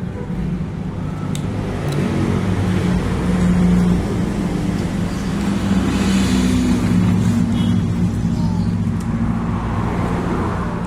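A motor vehicle's engine running steadily, a low hum that grows louder about two seconds in and holds there, its pitch shifting slightly.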